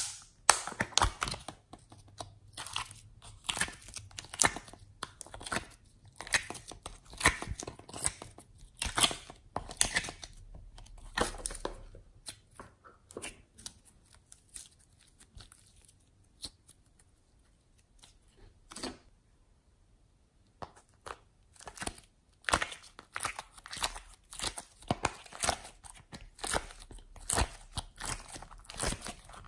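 Hands squishing and folding thick slime, making irregular wet crackling and popping clicks. The crackles thin out and go quieter for several seconds in the middle, then pick up again.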